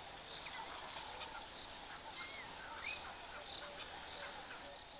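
Natural bush ambience: scattered short chirps and small rising whistles from birds over a steady high-pitched chorus of insects and frogs, with a short run of evenly repeated low notes near the end.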